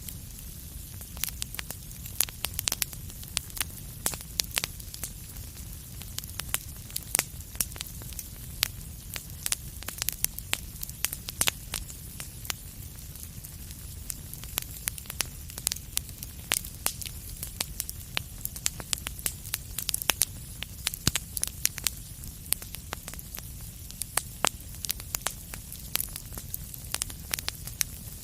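Wood fire crackling in a fireplace: many sharp, irregular pops and snaps over a steady low rumble of the flames.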